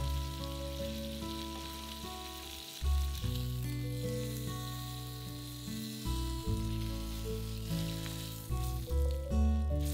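A chunk of pork shoulder searing in olive oil and its own rendered fat in a frying pan, a steady sizzle. Background music plays over it, its held notes changing every second or so.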